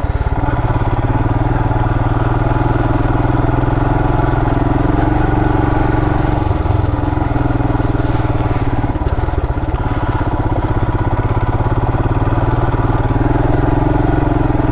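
The 2020 Royal Enfield Himalayan's 411 cc single-cylinder engine running steadily at low trail speed, its note shifting briefly a couple of times near the middle. It is heard through a helmet microphone.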